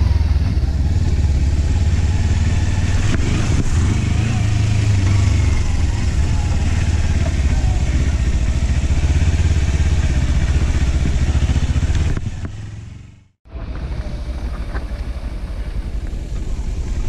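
Motorcycle engine running as the bike rides a muddy dirt trail, heard as a steady low rumble through a camera on the handlebars. It fades out about twelve seconds in, and after a short break a quieter steady running sound picks up.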